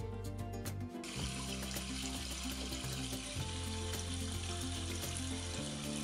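Recorded sound of water running over rocks, played through a smartphone's speaker: an even hiss that starts about a second in and holds steady, over background music.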